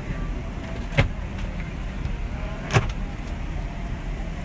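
Steady low rumble of airliner cabin noise, broken by two sharp knocks, one about a second in and another near three seconds.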